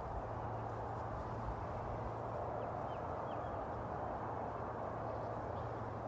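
Steady outdoor background noise with a low hum under it, and a bird chirping faintly a few times, short rising notes about halfway through.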